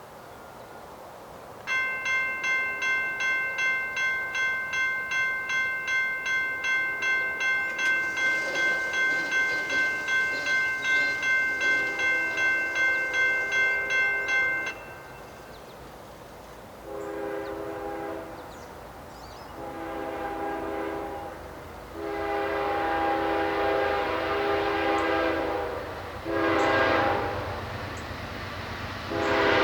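A grade-crossing bell rings about twice a second for some thirteen seconds, with a distant locomotive horn sounding faintly beneath it. After the bell stops, the horn of a Norfolk Southern GE ES44DC diesel locomotive sounds five blasts, one of them long, growing louder as the train approaches.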